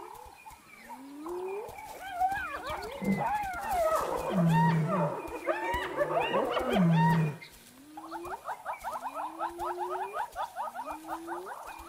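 Spotted hyenas calling around a kill: rising whoops and high, bending yelps, with deep growls in the middle; from about eight seconds in, a fast run of chattering giggles, several a second, goes on over further rising whoops.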